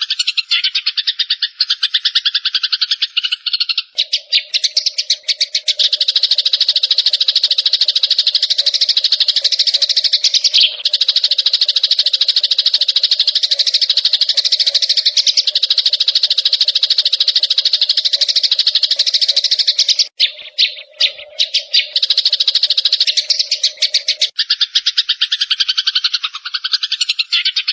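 Recorded small songbirds chattering in a dense, rapid trill without pause, with a lower steady note joining underneath at about four seconds and dropping out near the end; the chatter breaks off briefly a little after twenty seconds.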